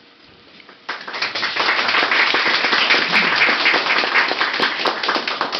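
Small audience applauding in a room, starting about a second in.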